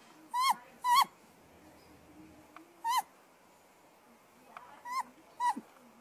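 Great grey owl giving five short, high, squeaky calls at irregular gaps, each rising then dropping in pitch.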